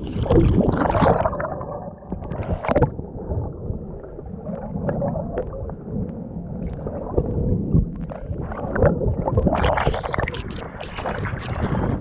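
Choppy water splashing and gurgling against a kayak hull in uneven surges, stirred up by monsoon wind.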